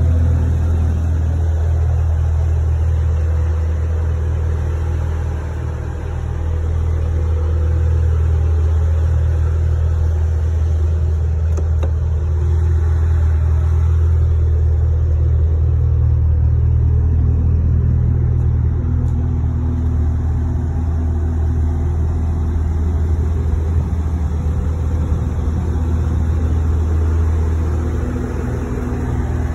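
Stock Cadillac CTS-V's supercharged 6.2-litre V8 idling steadily through its factory exhaust, a low even rumble with no revving.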